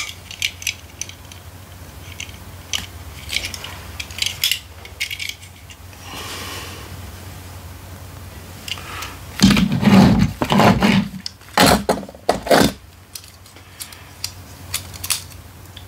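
Small die-cast metal toy cars being handled: light metallic clicks and clinks as they are turned over in the hands, with a cluster of louder knocks and bumps about ten seconds in as a car is set down on the table.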